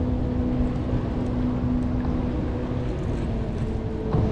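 Wind and water noise around a kayak on open bay water, with a steady low hum underneath.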